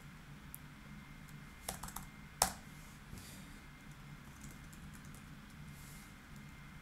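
Computer keyboard keystrokes: a few scattered key presses, one louder stroke about two and a half seconds in, over a faint steady low hum.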